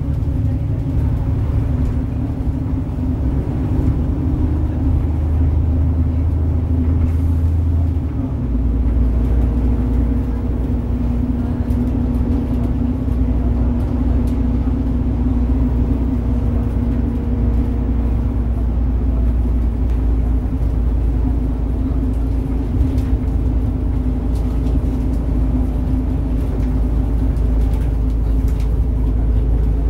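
Engine and road noise heard from inside a moving bus: a steady low drone with a humming tone that shifts about eight seconds in, as the engine note changes.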